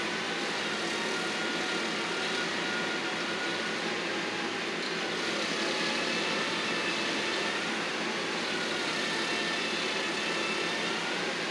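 A machinery engine running steadily, its pitch wavering slightly up and down.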